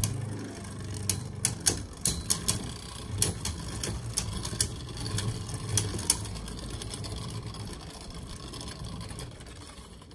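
Two Beyblade spinning tops, Vanish Fafnir and Cho-Z Valkyrie, whirring on the floor of a clear plastic stadium. They clack against each other in a string of sharp hits over the first six seconds. The whir grows fainter as they lose spin.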